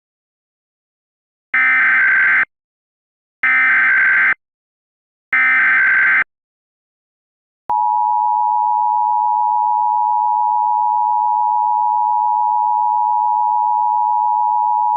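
Emergency Alert System activation: three one-second screeching SAME header data bursts about two seconds apart. About eight seconds in, the steady two-tone EAS attention signal begins. The alert precedes a blizzard warning.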